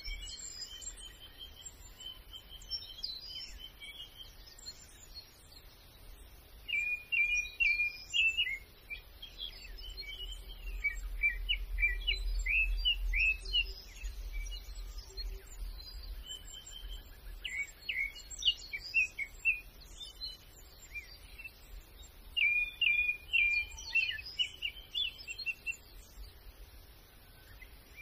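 Small songbirds chirping and singing in quick phrases, in several bursts. A low rumble, like wind, swells for a few seconds midway.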